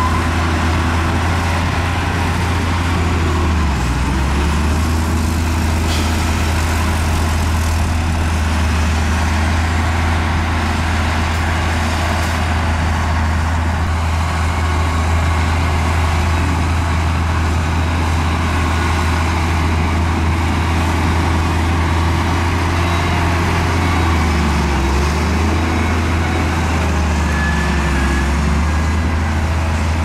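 Heavy diesel engine of earthmoving machinery running steadily with a deep hum, its pitch dipping briefly about four seconds in and again about twenty-five seconds in.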